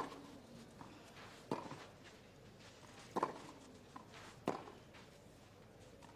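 Tennis rally on clay: a ball struck back and forth by rackets, four sharp hits about one and a half seconds apart, with fainter knocks between them.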